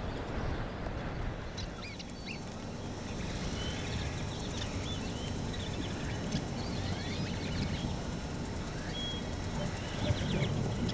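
Many birds calling in short chirps, squeaks and whistles, starting about a second and a half in, over a steady low rumble.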